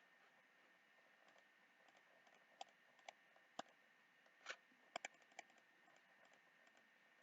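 Near silence with about seven faint computer mouse and keyboard clicks in the middle, two of them in quick succession, over a faint steady high-pitched hum.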